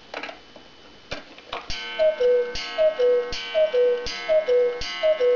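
A Black Forest cuckoo clock strikes the hour. The movement clicks as it is released, then the two-note cuckoo call, high then low, sounded by two wooden bellows whistles, begins about two seconds in. It repeats about once a second, five times, each call paired with a ringing gong strike.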